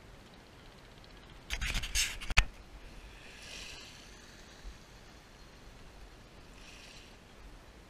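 About a second and a half in, scraping and knocking close to the microphone for about a second, ending in one sharp knock. After it come two soft swishing washes of small waves on a pebble shore.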